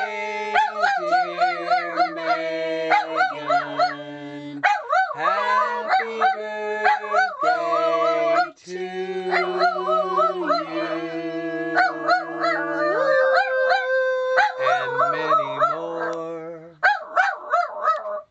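Miniature dachshund howling in long, wavering notes that rise and fall, singing along over steady held low notes of an accompanying tune; the howl breaks off briefly about halfway through.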